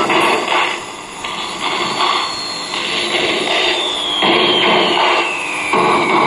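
Static from a vintage National Panasonic radio-cassette's speaker as the dial is tuned between stations: noisy hiss that swells and fades in quick pulses, with a thin whistle sliding steadily down in pitch through the second half.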